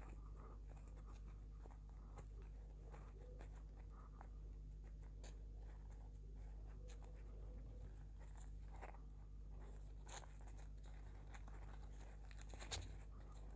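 Faint rustling and small clicks of fingers pressing and shaping a glitter faux-leather and satin-ribbon bow while its hot glue sets, over a low steady hum.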